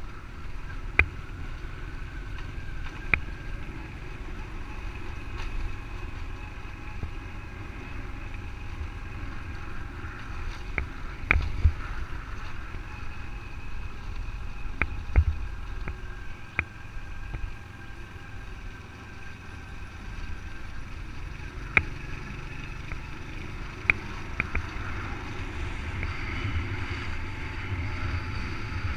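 Motorbike riding along a rough road: steady engine and wind rumble on the camera, with several sharp knocks as it jolts over bumps and potholes.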